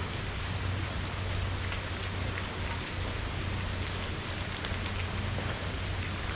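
Steady rain falling, with scattered faint drop ticks and a low steady hum underneath.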